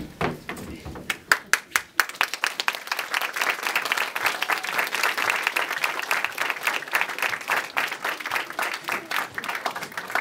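Audience applauding: a few loud separate claps at first, filling out within about two seconds into steady, dense clapping that stops abruptly at the end.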